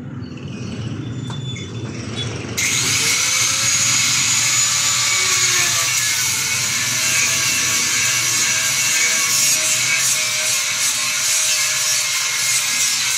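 A handheld corded power tool switches on about two and a half seconds in, its motor whine rising as it spins up. It then runs steadily, cutting or abrading the edge of a wooden board.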